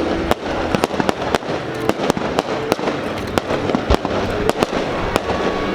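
Aerial fireworks display: a dense, irregular barrage of sharp bangs and crackles, several a second.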